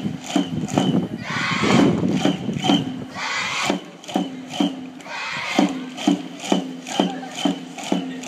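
A drum beaten steadily about twice a second for a cheer section, while a large group of children shouts a cheer in unison in three bursts, about one, three and five seconds in.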